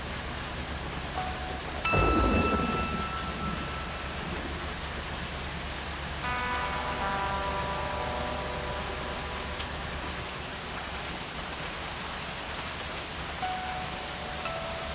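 Steady heavy rain, with a thunderclap about two seconds in. From about six seconds, held musical tones sound softly under the rain.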